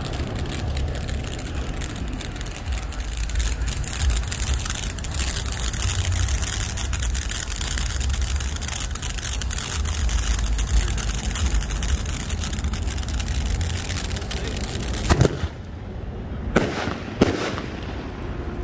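Ground fountain firework spraying sparks with a loud steady hiss and dense crackling. About fifteen seconds in the spray stops with a loud bang, followed by two more sharp bangs over the next two seconds.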